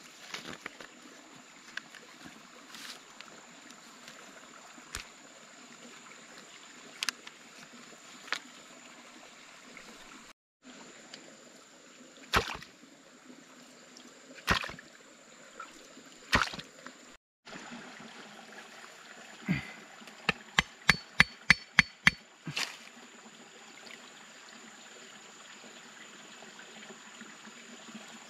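Water trickling steadily, with scattered sharp knocks and a quick run of about ten of them, roughly four a second, some twenty seconds in. The sound cuts out completely twice for a moment.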